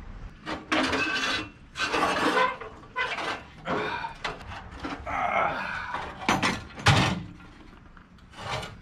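A series of rough rasping, scraping strokes, about one a second, with a sharp knock about seven seconds in.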